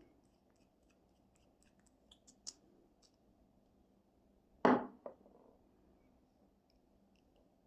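Small objects being handled on a hard surface: a few light clicks and taps, then one louder knock with a smaller one right after it, a little under five seconds in.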